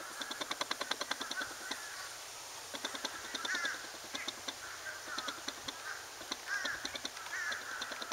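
Crows calling several times, with a fast ticking chatter of about ten ticks a second coming and going in short runs.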